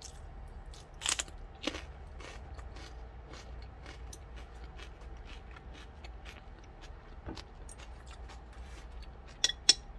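Crisp bite into a raw cucumber chili pepper with a loud crunch about a second in, then a run of small crunches as it is chewed. Two sharp clicks near the end.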